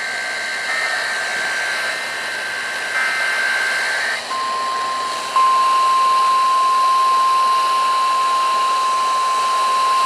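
NOAA Weather Radio alert over hissy, static-laden reception: buzzy SAME digital header bursts, the last ending about four seconds in, then the steady 1050 Hz warning alarm tone, which steps louder about a second later. It signals that a warning message is about to be read.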